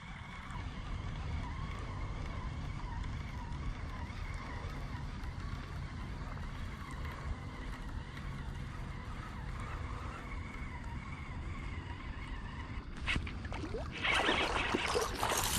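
Wind buffeting the microphone: a steady low rumble, with a louder burst of rustling, splashy noise in the last couple of seconds.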